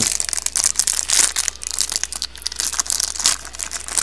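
Trading card packaging being torn open and crinkled by hand: a dense, continuous crackle of plastic wrapping.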